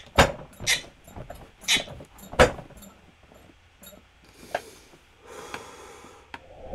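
A man's stifled laughter: four short, sharp snorting bursts of breath in the first two and a half seconds, then quieter breathy exhales.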